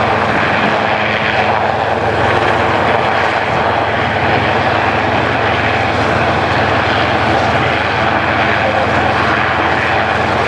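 Westland Sea King helicopter hovering: loud, steady turbine and rotor noise with a low hum underneath.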